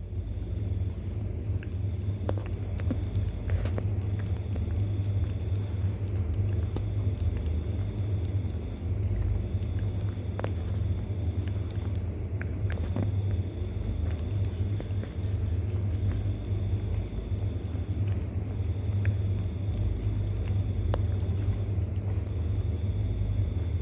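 A cat licking raw egg from a bowl: scattered faint wet clicks of its tongue, over a steady low rumble.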